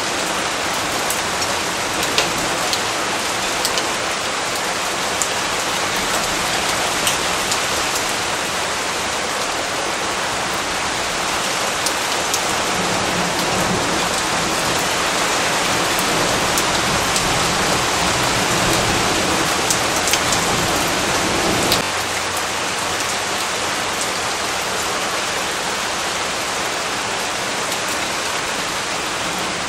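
Steady rain falling on surfaces, with individual drops ticking sharply close by. It grows a little louder toward the middle and eases back abruptly about two-thirds of the way in.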